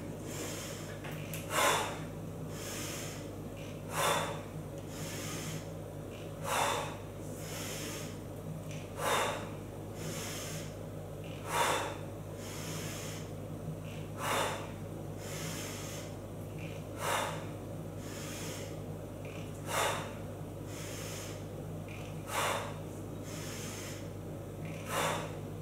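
A woman's sharp, forceful breaths during exercise repetitions, one about every two and a half seconds, ten in all, over a steady low hum.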